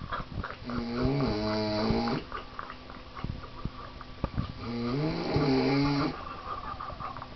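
A man snoring in his sleep: two long, drawn-out snores about four seconds apart, each rising in pitch as it begins.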